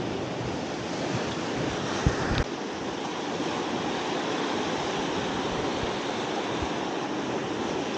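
Sea surf washing on a rocky shore, with wind rushing over the microphone. Two short sharp knocks sound about two seconds in, a fraction of a second apart.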